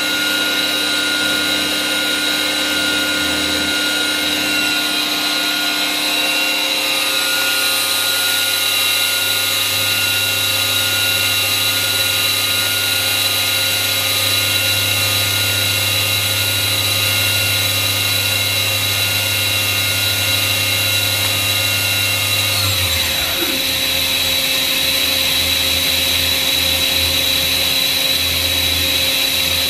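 Doosan HP 5500 horizontal machining center's spindle running at speed, a steady whine of several tones over the machine's hum. About 23 seconds in, part of the whine falls away in a downward glide as the spindle slows, while a steady hum and tone carry on.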